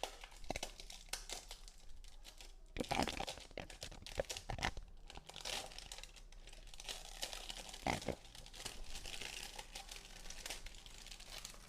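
Wrapper being torn and peeled off a mobile phone's box, crinkling and crackling in irregular bursts.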